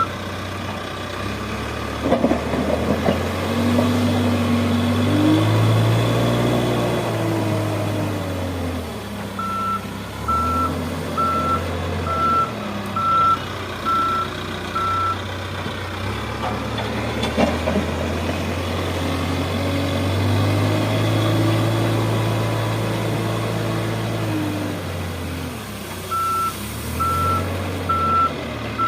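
A heavy construction machine's engine revving up and settling back twice, as under working load. Its reversing alarm beeps steadily in two stretches, about a third of the way in and again near the end. There are a couple of sharp knocks, one early and one past the middle.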